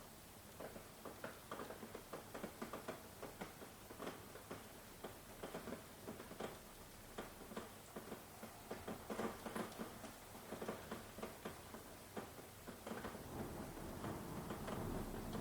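Rain falling, with many close, separate drops pattering and dripping at an uneven rhythm over a steady hiss. A low rumble of thunder builds near the end.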